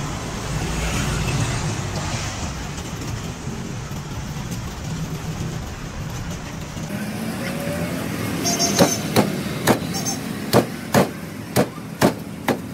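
Cleaver chopping a grilled pork foot on a thick wooden chopping block: about eight sharp chops, roughly two a second, starting about nine seconds in. Before the chopping there is a steady background rumble of street and traffic noise.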